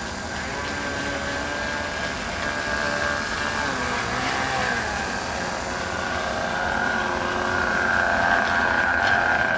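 A radio-controlled airboat's motor and caged air propeller run with a steady, slightly wavering high whine. It grows louder toward the end as the boat comes closer.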